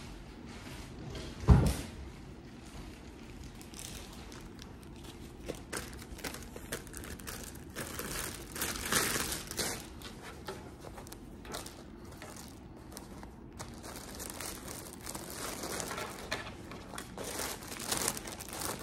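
Clear plastic poly bag crinkling and rustling in irregular bursts as a folded jacket is slid into it and wrapped, with one sharp thump about a second and a half in.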